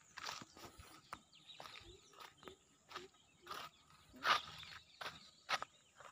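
Footsteps crunching on dry grass and gravel at a walking pace, about one to two steps a second, over a steady high whine in the background.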